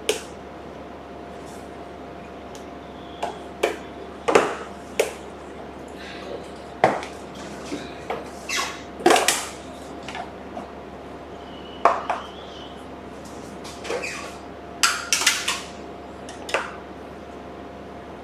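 Irregular clicks and knocks of a metal ice cream scoop and a plastic ice cream tub being handled, as the lid comes off and vanilla ice cream is scooped out.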